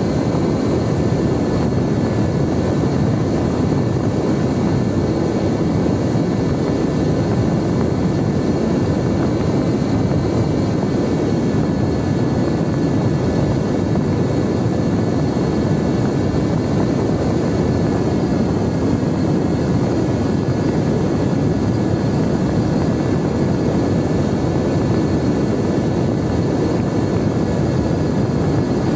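Mini Talon RC plane in level cruise, heard from its onboard camera: a steady rush of wind over the airframe with the thin, even whine of its electric pusher motor and propeller.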